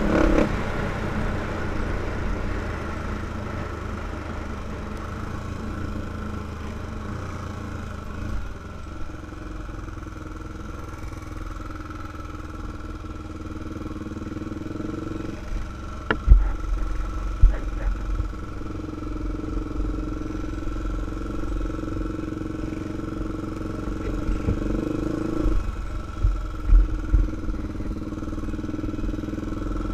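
2005 Honda 400EX ATV's single-cylinder four-stroke engine running on a trail ride, its pitch shifting a few times with the throttle, with sharp knocks about halfway through and again near the end as the quad rides over rough ground.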